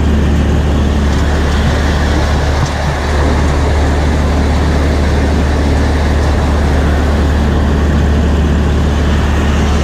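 John Deere 3300 combine running steadily while harvesting wheat: a constant low drone under an even wash of machine noise.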